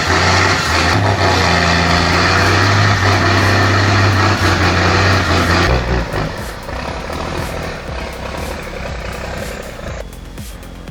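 Heavy diesel engine of a fully loaded logging truck working hard under load on an uphill climb, running loud and steady, then dropping noticeably quieter about six seconds in.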